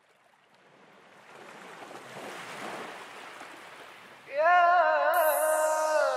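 Sea surf washing, slowly fading in. About four seconds in, a loud held melodic note with a wavering pitch comes in over it, the opening of the song, with a high falling sweep a second later.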